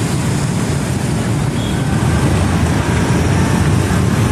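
Steady rumble of heavy city road traffic, cars and motorbikes moving through a busy junction.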